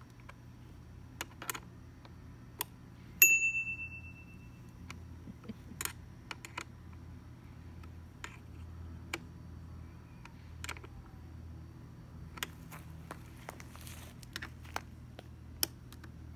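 Scattered small metallic clicks and ticks of a hex key working the small screws of a metal mounting bracket as they are tightened. About three seconds in, one sharp metallic ding rings for about a second.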